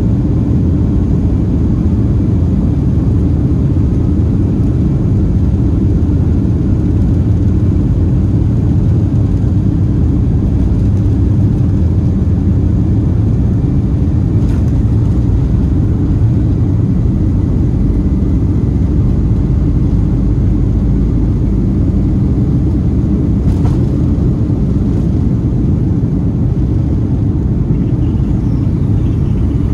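Boeing 757-231 heard from inside the passenger cabin during its takeoff roll and lift-off: a steady, loud, deep rumble of the engines at takeoff power and the wheels on the runway.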